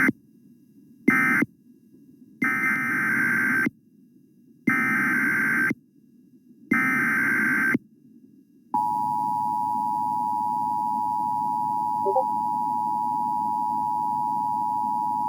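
Emergency Alert System signalling: two short bursts of digital data, then three roughly one-second bursts of SAME header data with a harsh warbling buzz, announcing a new alert. From about nine seconds in comes the steady two-tone EAS attention signal, which runs on past the end.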